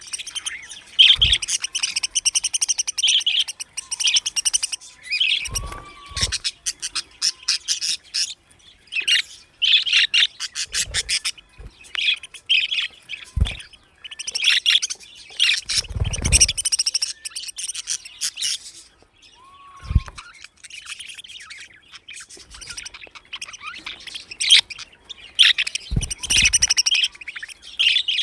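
A flock of budgerigars chirping and chattering, many high, quick calls overlapping without pause. A few dull low thumps are mixed in.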